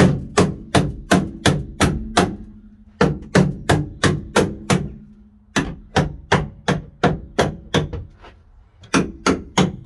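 Hammer striking repeatedly in quick runs of five to seven blows, about three a second, with short pauses between runs.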